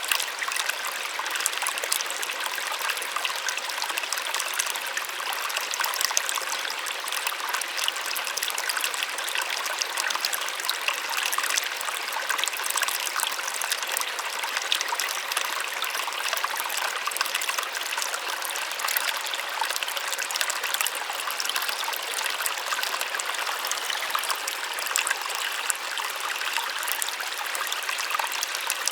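Small waterfall splashing steadily, a soft and delicate sound. It is a light, even rush of falling water, with almost no deep rumble.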